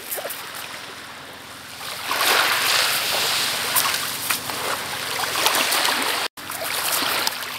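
Small waves washing on a pebble beach, a broad rushing surge that swells about two seconds in and holds, with an instant's dropout near the end.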